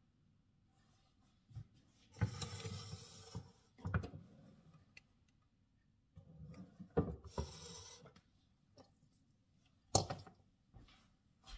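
Rustling and knocks of a round waffle maker being handled on a granite countertop, then a sharp clack about ten seconds in as its lid is shut.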